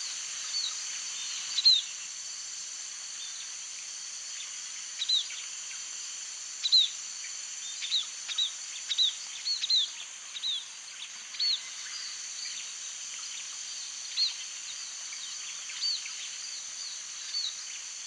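White-headed munia giving short, thin, high calls, each note sliding downward, irregularly spaced and most frequent in the middle, over a steady high hiss.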